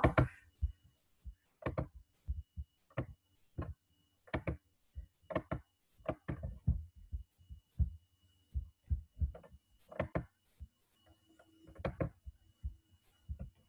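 Irregular taps and clicks from someone working a computer to share the screen, picked up close to the computer's microphone as short dull thumps, a few a second, with a faint steady electrical hum underneath.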